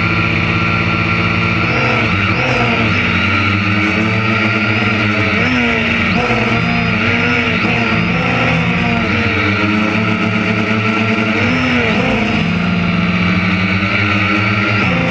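Engine of a harvest machine running steadily under load, its pitch repeatedly dipping and recovering as the load changes.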